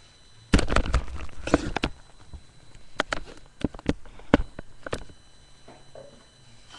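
A burst of knocks and scraping, then a handful of sharp separate clicks and taps: things being handled at a bathroom sink.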